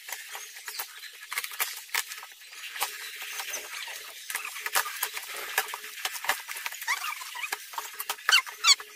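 Packing tape being peeled off a cardboard box, a dense irregular crackle, then cardboard flaps being pulled open with a few short squeaks near the end.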